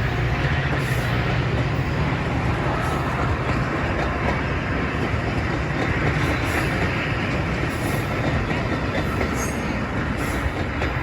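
A train rolling steadily past, with wheels clicking over the rail joints above a continuous rumble.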